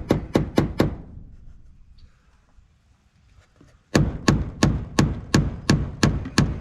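A stapler driven in a fast, even run of strikes, about three or four a second, stopping about a second in and starting again after a pause about four seconds in.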